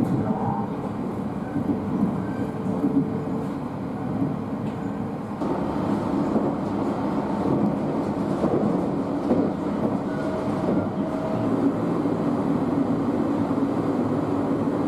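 Overnight passenger train running on the rails, a steady rumble and rattle that grows louder about five and a half seconds in.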